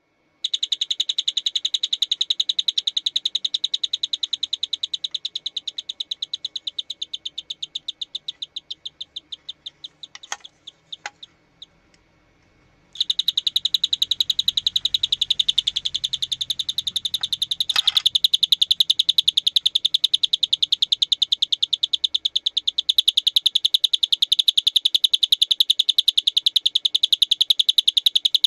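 Electronic canary doorbell sounding through a small speaker: a fast, high chirping trill. The trill fades and its pulses slow until it dies out about halfway through, then it starts again abruptly and runs on loud, with a few sharp clicks in between.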